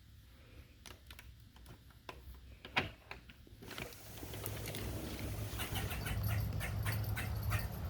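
Squirrel making sharp clicking chatter: scattered clicks at first, a louder one just before three seconds, then a rapid, irregular run of clicks over a rising hiss in the second half.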